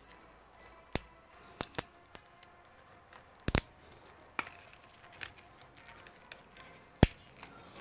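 Sharp clicks and small knocks of laptop DDR4 SO-DIMM RAM modules being handled and pressed into their slots, with the loudest as a double click about halfway and a single click near the end.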